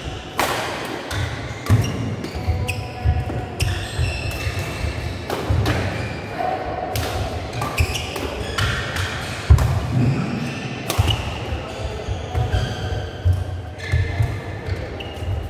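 Badminton rally: sharp, irregular racket strikes on the shuttlecock mixed with the players' footsteps thudding on the court, with low background chatter in the hall.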